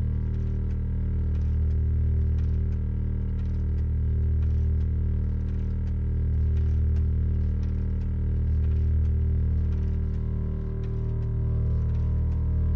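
A steady low droning hum made of several held tones, with faint irregular clicks and ticks over it.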